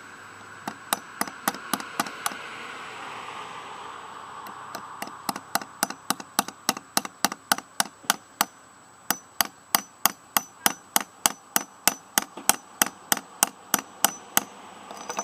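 Claw hammer tapping metal on a lawn tractor's electric starter motor as it is knocked apart: a few light taps, a short pause, then a long run of sharp metallic taps, about four a second, broken once briefly.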